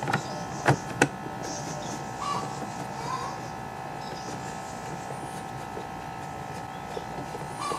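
A steady hum runs throughout, with three sharp clicks or knocks in the first second, typical of tools or chainsaw parts being set down on a workbench.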